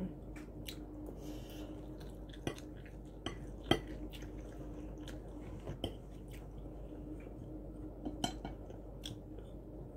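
Quiet eating sounds of noodles: chewing, with scattered light clicks and taps of a fork and wooden chopsticks on plates. A faint steady hum sits underneath.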